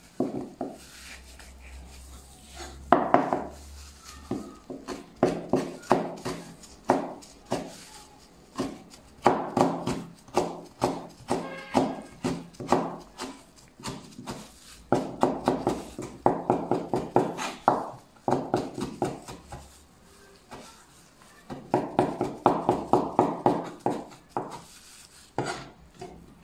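Chinese cleaver chopping carrot slices into thin strips on a wooden cutting board: runs of quick, even knife strikes, several a second, with short pauses between runs.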